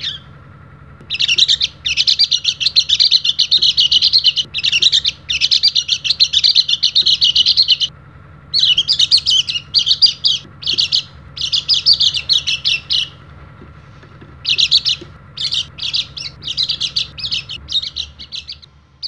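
White-eye (pleci) singing a fast, high-pitched chattering song: one long unbroken phrase of several seconds, then a run of shorter bursts with a pause about two-thirds of the way through. A faint steady hum lies underneath.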